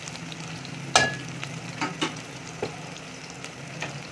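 Sliced onions sizzling in oil in a metal pot, stirred with a steel ladle that clinks against the pot: one sharp ringing clink about a second in, then several lighter taps. The onions are still pale, early in the frying.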